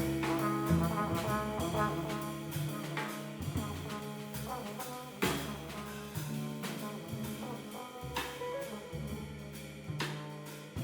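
Jazz quartet playing live: trombone over guitar, bass and drums, with cymbal and drum strokes. The music gradually gets quieter.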